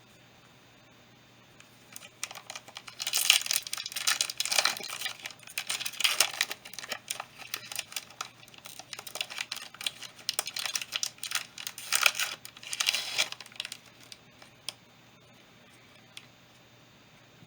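Foil wrapper of a Yu-Gi-Oh booster pack being torn open and crinkled. The crackling starts about two seconds in and dies away after about thirteen seconds, with a few light ticks after it.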